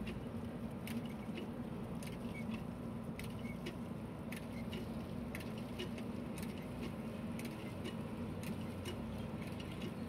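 JCB 3DX backhoe loader's diesel engine running steadily under load while the backhoe arm digs and lifts a bucket of soil. Scattered sharp clicks and rattles sound throughout.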